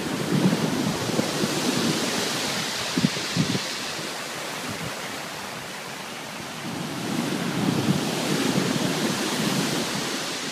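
Stormy sea surf: waves breaking and washing in, with wind buffeting the microphone. The roar swells twice, with a quieter lull in the middle.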